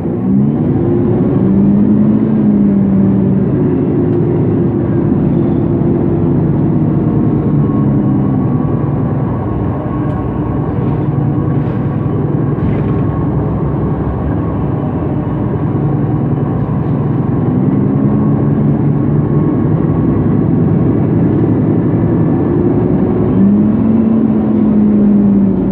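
MAN NG 273 T4 LPG articulated city bus's gas engine running under load. Its pitch rises quickly near the start, holds, and sinks about eight seconds in, then climbs again twice in the second half, the last time near the end.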